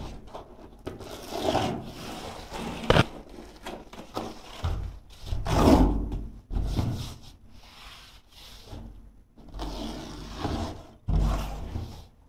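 Carpet underlay being pressed and worked into a corner by hand: irregular scraping and rubbing scuffs, with a sharp click about three seconds in.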